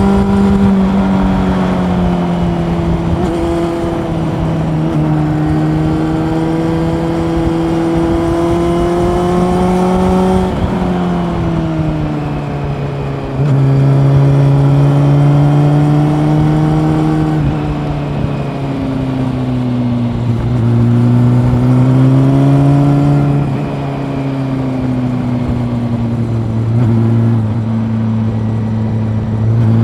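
Honda CB400 Super Four inline-four engine running under varying throttle while riding, its pitch rising and falling gently. About 11 seconds in the revs fall away as the throttle closes, then the engine pulls louder again a couple of seconds later.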